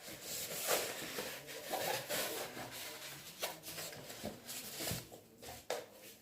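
Diamond painting kit packaging handled by hand: irregular rustling and rubbing of paper and plastic, with a few short scrapes.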